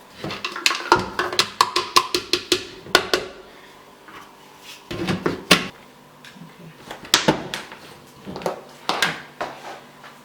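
A quick run of clicks and light knocks, then a few scattered knocks: kitchen containers and utensils being handled and set down on a counter.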